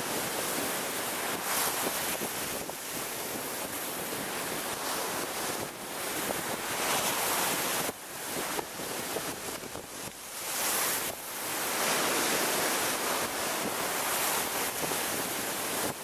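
Rough sea waves surging up and crashing against a stepped concrete sea wall: a continuous rush of surf and spray that swells and eases with each wave.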